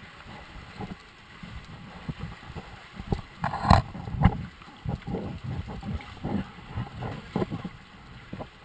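Feet wading through shallow, muddy stream water: irregular splashing steps, the loudest a few seconds in.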